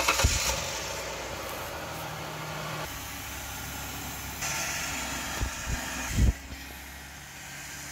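A 2003 Ford Windstar's V6 engine idling steadily just after being started. There are two short low thumps late on, the second louder.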